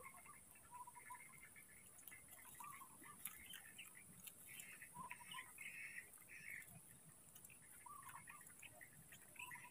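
Quiet ambience with faint, short animal chirps scattered throughout, a few every second, over a steady high hiss.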